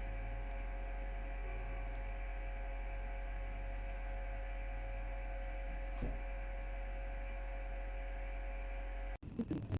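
Steady electrical hum: a strong low mains drone with several fainter steady tones above it. It cuts off suddenly near the end, followed by a few brief louder sounds.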